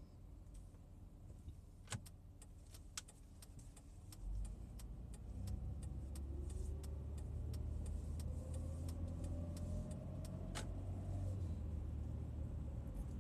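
Car engine heard from inside the cabin as the car pulls away and speeds up: a low rumble builds about four seconds in and the engine note rises steadily, then drops suddenly with a click about ten seconds in. Light clicks are scattered through.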